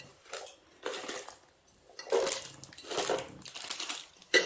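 Small objects being handled and unpacked: light clattering and rustling in three short bursts, with a sharp click near the end.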